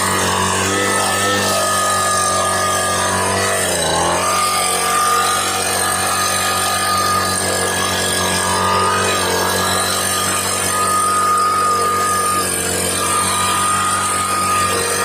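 Husqvarna 125B handheld two-stroke leaf blower running at high throttle, blowing debris out of roof gutters; the engine pitch dips briefly about four seconds in, then holds steady.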